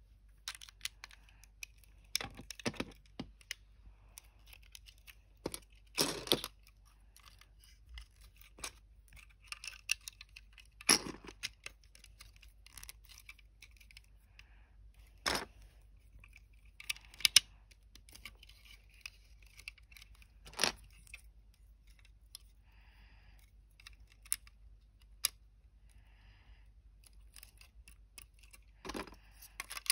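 Plastic toy bricks clicking and rattling as they are picked out of a loose pile and pressed onto a brick-built model, in irregular sharp clicks and short clattering bursts.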